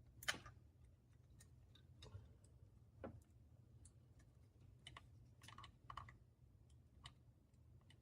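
Faint, irregular small clicks and taps of a terminal removal tool and pick working terminal pins in and out of a plastic electrical connector housing, the sharpest just after the start, over a low steady hum.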